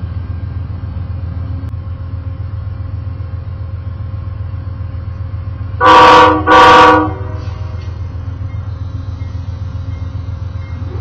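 Diesel locomotive air horn sounding two short blasts, a chord, about half a second each, over a steady low rumble from the standing passenger train. Two short blasts is the railroad signal that brakes are released and the train is about to proceed.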